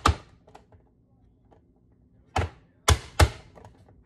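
Hand-pressed vegetable chopper's plastic lid slammed down, forcing onion through its grid blade: one strike at the start, a pause with a few light clicks, then three more strikes near the end, the last two close together.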